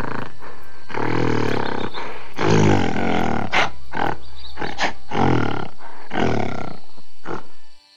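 Gorilla giving a run of about eight deep calls, each under a second long, cut off suddenly near the end.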